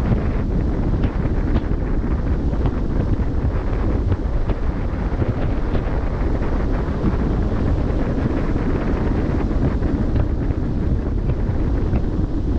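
Wind buffeting the microphone at a ship's bow, a steady low rumble, over the wash of sea water along the moving hull.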